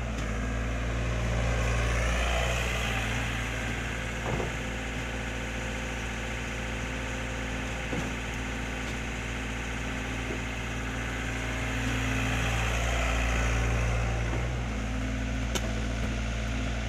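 Diesel engine of a LOVOL FR80E crawler excavator running steadily as it digs and loads soil. It works harder under hydraulic load twice, about two seconds in and again around twelve seconds. A couple of brief knocks from the bucket and soil come between them.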